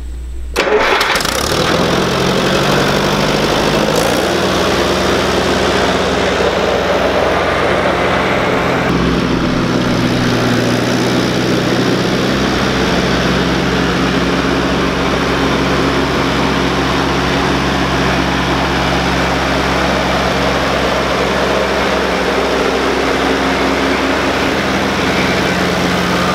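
1957 Allis-Chalmers D17 tractor engine running at a steady speed, coming in suddenly about half a second in.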